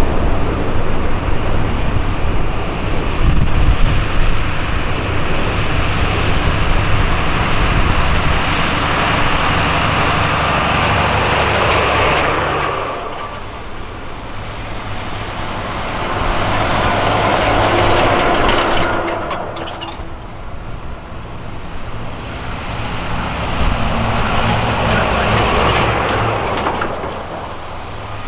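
Military convoy trucks driving past one after another, diesel engines and tyre noise swelling and fading as each vehicle passes. The heaviest engine sound comes in the first twelve seconds or so, followed by two more vehicles passing.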